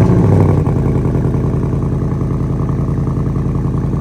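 2022 Ford Mustang's Gen3 Coyote 5.0 V8 on a cold start: it fires up loudest in the first half second, then settles into a steady, evenly pulsing fast idle.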